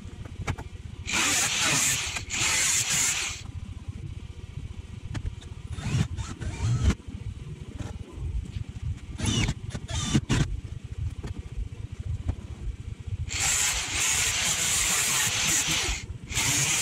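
Handheld power tool working the steel of a Mini's scuttle and dash rail in four bursts of one to three seconds each, with a few knocks and clatters between them.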